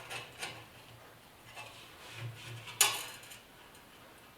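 Light metallic clicks and taps of motorcycle parts and hardware being handled and fitted, with one sharp knock just before three seconds in.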